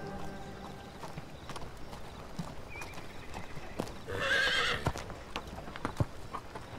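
Horse hooves clopping in scattered, irregular knocks, with a horse whinnying briefly about four seconds in; background music fades out in the first second.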